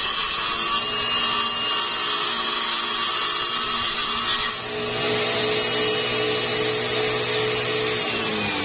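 Homemade table saw with a DC 895 motor, its 6-inch blade whining steadily as it rips a strip of MDF. About halfway through, the sound dips briefly and changes as the cut finishes and the blade spins on freely at a steady pitch.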